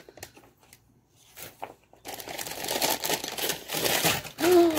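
Crumpled brown packing paper being crinkled and torn open by hand as a small item is unwrapped: a few soft rustles at first, then continuous crinkling from about two seconds in.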